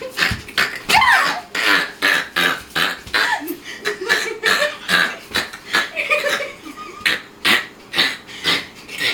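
A young woman laughing uncontrollably: a long run of short breathy bursts of laughter, a few a second, with squealing rises in pitch between them.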